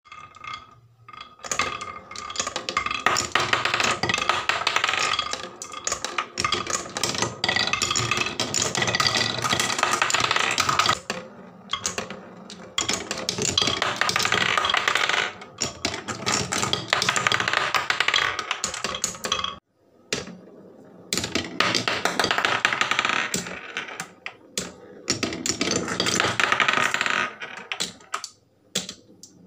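Glass marbles rolling, spinning and clattering along a wooden HABA marble run: a near-continuous stream of rapid clicks and rattles on wooden rails and blocks, dropping off briefly several times, around the middle and near the end.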